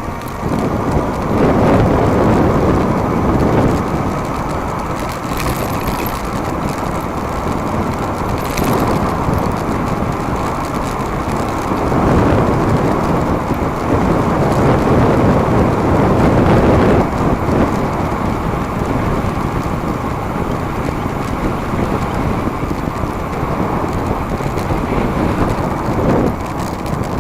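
Wind rushing over the microphone with tyre and road noise from an e-bike riding at speed, swelling and easing in long surges every few seconds.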